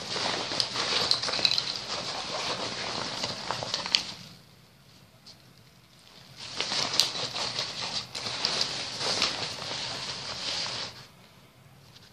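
Nylon backpack fabric rustling as it is handled and packed, with many small clicks. It stops for a couple of seconds about four seconds in, starts again, and goes quiet near the end.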